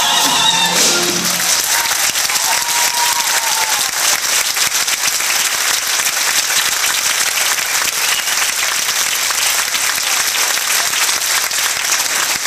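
Theatre audience applauding steadily, starting as the full-cast singing and band cut off about a second in.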